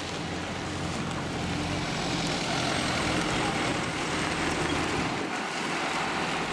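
A motor vehicle's engine running steadily: a low hum under a broad hiss, growing slightly louder about two seconds in.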